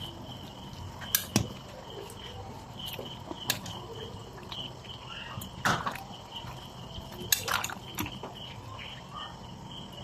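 Cricket chirping steadily in a high pulsed trill, with a few sharp knocks and clicks scattered through it.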